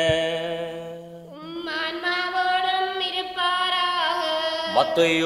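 A priest's chanted liturgical greeting ends on a long held note, then a woman sings the response in long held notes, rising into the first one.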